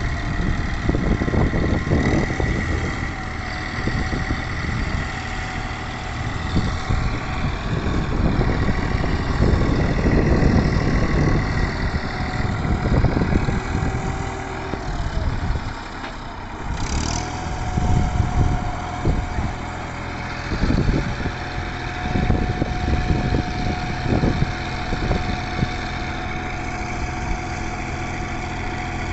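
Tractor diesel engine running, its loudness swelling and easing every few seconds as if under changing load or throttle.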